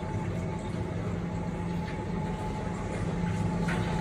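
Steady low hum of kitchen machinery running, with a faint steady whine over it and a short click near the end.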